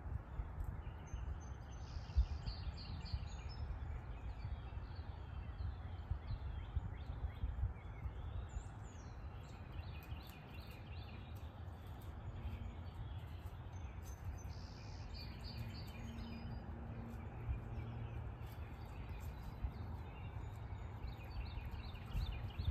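Birds singing and chirping in woodland, one bird repeating a short trilled phrase a few times, over a steady low rumble.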